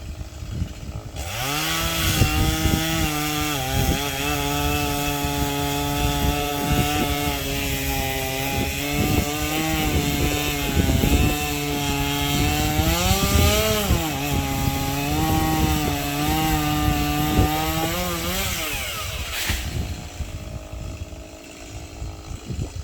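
Chainsaw revving up about a second in and running at high speed, its pitch dipping and rising as it cuts through sycamore branches, then winding down near the end.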